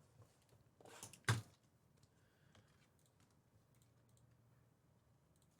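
Faint handling noises: a short swish about a second in, then a sharp click, followed by a few faint scattered clicks over a quiet room.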